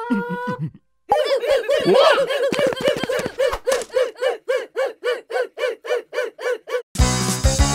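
A high-pitched cartoon voice laughing in a long, rapid run of repeated syllables, about four a second, after a short falling sound effect. Bright keyboard music starts near the end.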